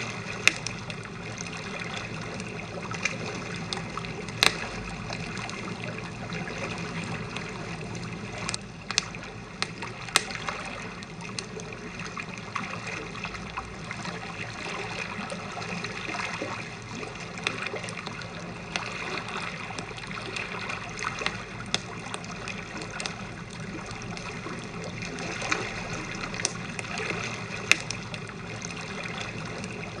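Wood campfire crackling, with sharp pops every few seconds, over a steady wash of waves lapping at the shore.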